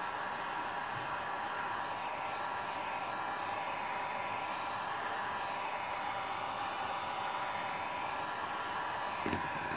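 Handheld electric heat gun running steadily: a rush of blown air with a steady whine, warming a shell cup to soften it. A few light knocks near the end.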